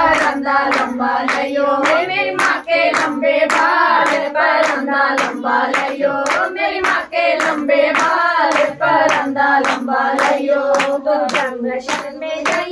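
Devotional singing with steady hand-clapping to the beat, about two and a half claps a second.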